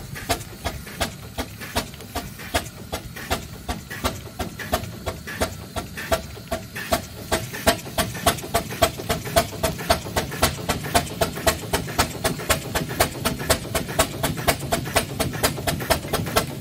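Fowler steam roller under way, its engine beating in a steady rhythm of chuffs, about two or three a second at first, quickening and growing louder from about halfway.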